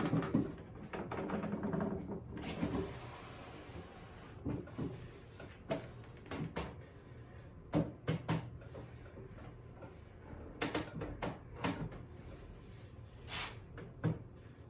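Handmade wooden drawers sliding in and out of a wooden table's drawer openings, wood rubbing on wood, with several sharp knocks in the second half as they are pushed home. The drawers are newly made and not yet fine-fitted.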